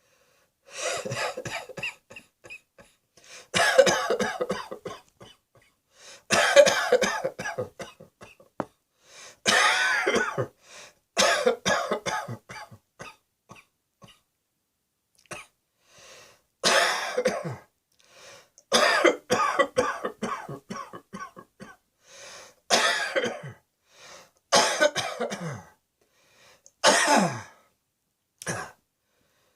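A person coughing in repeated fits: about a dozen bouts, each a quick run of several hacking coughs, separated by short pauses of a second or two.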